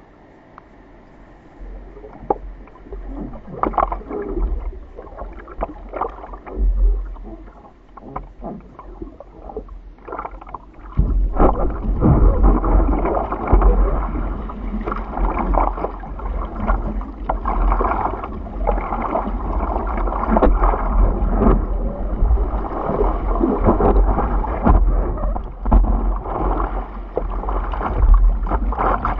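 Seawater splashing and lapping against a surfboard right beside a nose-mounted camera, with a low rumble underneath. Scattered splashes at first, then about eleven seconds in it becomes a louder, continuous rush of water.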